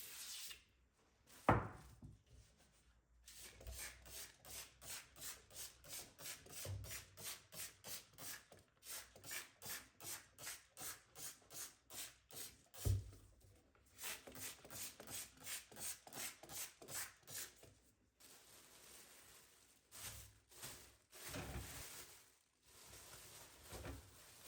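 Rhythmic back-and-forth scrubbing by hand, about two to three strokes a second for some fifteen seconds, with a sharp knock about a second and a half in and another midway.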